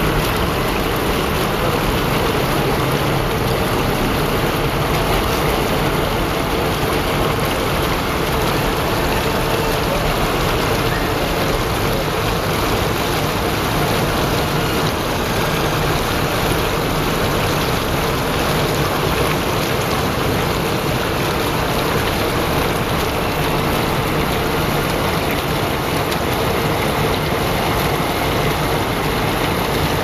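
Fountain jets and small cascades in a stone-edged pond splashing steadily: a constant rushing wash of falling water.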